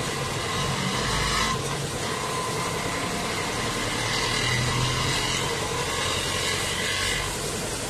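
Busy street traffic: motor vehicles and motorcycles running and passing, with the hiss of a water jet spraying motorcycles at a roadside bike wash.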